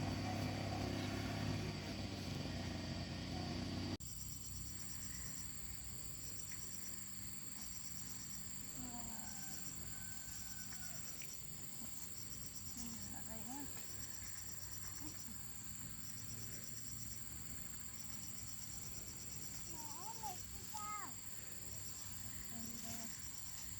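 A low motor hum that cuts off suddenly about four seconds in. After it, insects chirp in groups of quick high pulses over a steady high-pitched buzz, with faint rising and falling calls here and there.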